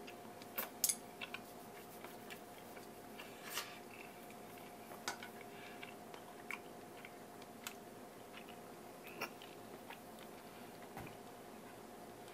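A person chewing, with irregular soft clicks and smacks of the mouth scattered through. A faint steady hum runs underneath.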